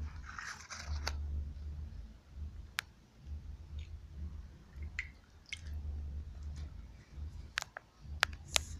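A hand moving and scooping in shallow water with tadpoles and algae, with a short wet splashing in the first second, then a few scattered sharp ticks, several close together near the end. A low rumble on the microphone comes and goes throughout.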